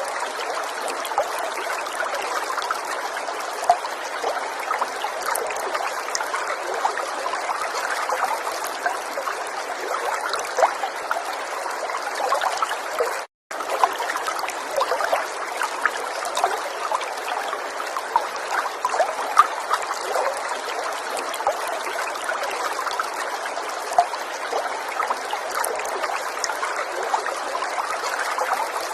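River water running and babbling steadily, a constant rush dotted with many small splashes. The sound cuts out completely for a split second about thirteen seconds in.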